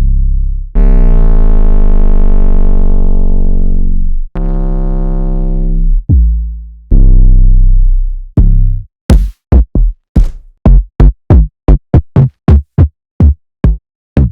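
Distorted 808 bass notes from a trap sample pack: a few long held notes, then shorter decaying ones, then a rapid run of short punchy 808 hits about three a second.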